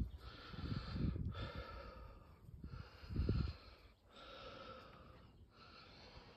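A person breathing heavily after climbing the tower stairs, with a breath roughly every second and a half. Low rumbles of wind on the microphone come and go, the loudest about three seconds in.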